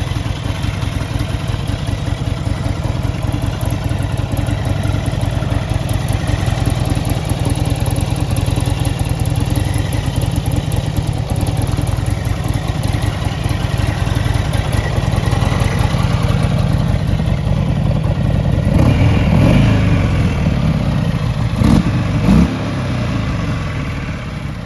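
Buell XB12S Lightning's air-cooled 1203 cc V-twin running at idle. About 19 seconds in it is revved once and falls back, then blipped twice in quick succession, before settling back to idle.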